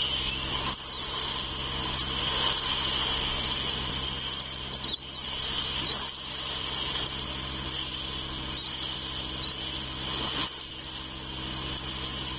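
Steady high insect drone with short high bird chirps repeating every second or so, over a low steady hum.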